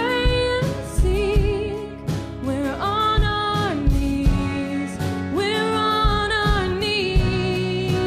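A woman singing lead in a worship song, backed by a live band of acoustic guitar, electric guitar, bass guitar and drum kit, with drum hits marking the beat.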